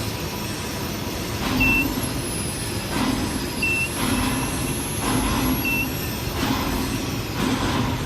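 Steady industrial machinery noise with a short high beep repeating about every two seconds.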